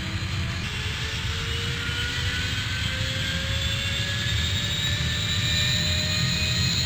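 Airplane flying overhead: a steady engine rumble with a whine that rises slowly in pitch, growing slightly louder toward the end.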